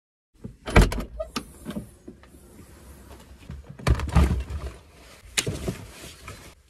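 Hiking gear being loaded into a car boot: heavy thumps as bags are set down on the boot floor, with rustling and small knocks in between. The loudest thumps come about a second in and around four seconds in.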